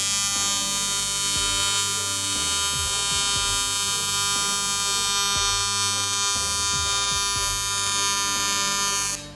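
AC TIG welding arc buzzing steadily as an aluminum elbow is welded to a turbo's aluminum compressor housing. The arc cuts off abruptly near the end.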